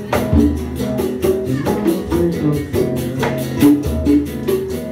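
Live band music: guitars playing chords and a moving low line, with hand percussion striking a steady, even beat.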